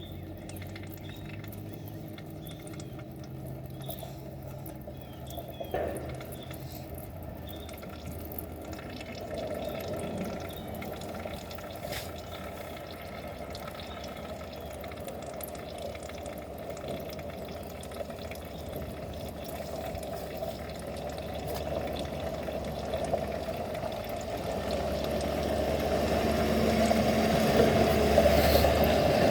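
Used oil draining from a small 212 engine and pouring and dribbling into a catch container, growing louder over the last few seconds.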